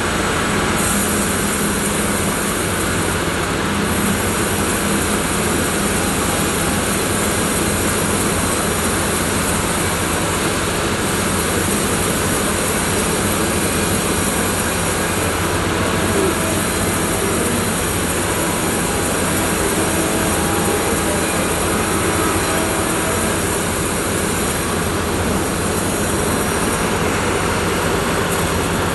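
Sawmill machinery running steadily: a loud, constant mechanical din with a low hum, and a high hiss that comes and goes several times.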